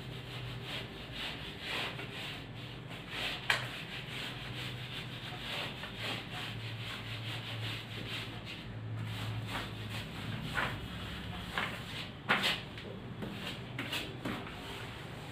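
A board duster rubbing back and forth across a whiteboard, wiping off marker writing in repeated strokes, with two sharp knocks along the way.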